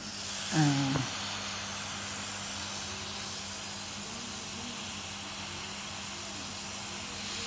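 Hot-air rework blower blowing with a steady hiss, heating one side of a SIM tray on a phone motherboard to soften the solder so the tray can be lifted off. A faint low hum runs under it.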